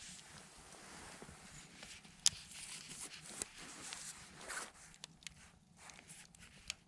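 Wood fire burning, with scattered soft crackles and one sharp pop about two seconds in.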